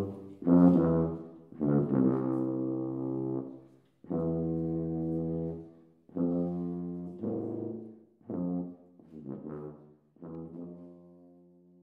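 Brass music: slow phrases of held notes with short breaks between them, the last note dying away near the end.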